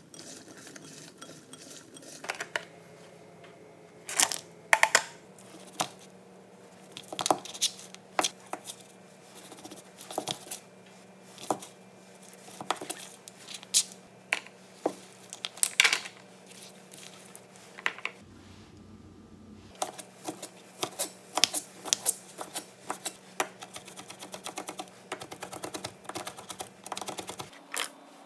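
Kitchen knife chopping on a plastic cutting mat: scattered single knocks at first, then a fast run of chops over the last several seconds, with a faint steady hum underneath.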